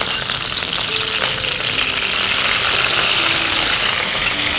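Ghee sizzling in a hot non-stick kadai: a steady, even hiss of the fat heating, swelling a little toward the middle.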